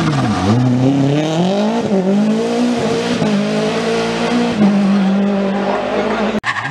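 Rally car engine at full effort on a special stage: the revs drop briefly as it brakes into a bend, then climb hard under acceleration and hold high and steady, with a short lift a little before the end. The sound cuts off abruptly near the end.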